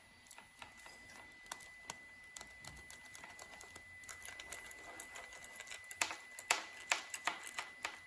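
Irregular mechanical clicking from a motorcycle's clutch lever and clutch switch being worked by hand. The clicks are sparse at first and come faster and louder from about six seconds in, over a faint steady high whine.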